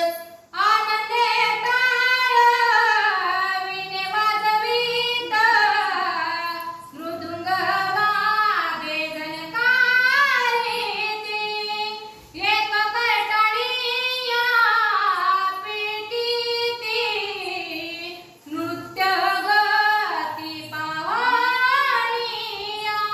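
A woman's voice singing a slow devotional verse of the scripture reading, in long melodic phrases with brief breaks for breath about every six seconds.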